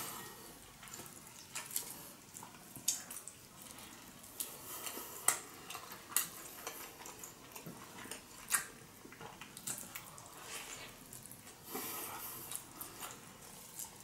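Irregular wet clicks and smacks of someone eating a giant sushi roll close to the microphone, from chewing and from the rice-and-nori roll being handled. There is a sharp knock right at the start.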